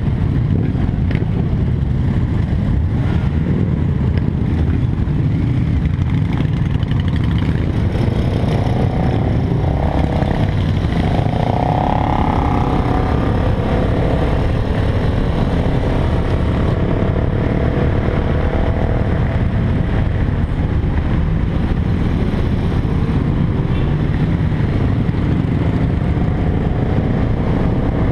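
Motorcycle engines running in a group ride: the BMW F800GS's parallel twin and the cruiser motorcycles around it, idling in the pack and then riding on, with an engine note rising and falling about ten seconds in as the bikes get moving.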